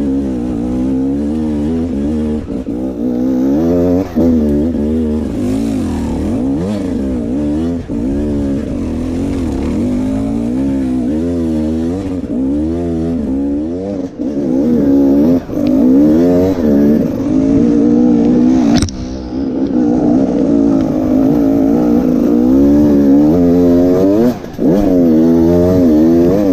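Enduro motorcycle engine revving up and down constantly as the bike is ridden over rough rocky ground, with one sharp knock about two-thirds of the way through.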